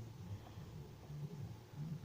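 Faint pick and handling noises from a pin-tumbler challenge lock being picked under tension, over a low uneven hum.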